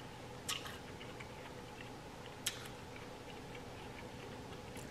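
Quiet room tone broken by three faint, sharp clicks about two seconds apart, with a few fainter ticks between, the small sounds of eating with utensils at a table.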